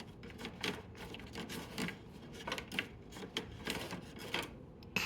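Irregular plastic clicks and scraping, about eight or nine over a few seconds, from the adjustable air louvers of a Hampton Bay 10,000 BTU window air conditioner being moved by hand, over the steady air rush of its blower.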